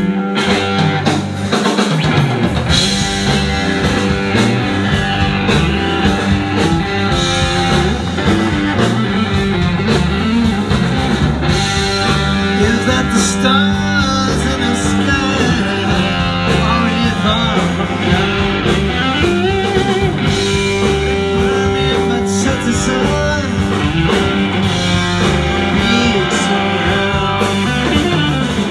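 Live rock band playing: electric guitar leading with bent and held notes over bass guitar and drum kit.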